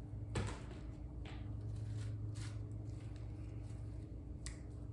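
A few faint rasping strokes of an onion being grated on a metal box grater.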